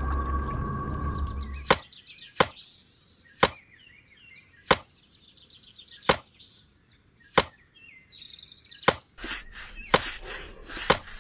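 Axe chopping into a wooden log: about eight sharp chops, one every second or so, with birds chirping faintly between them. Before the first chop, a steady hum with a low rumble cuts off.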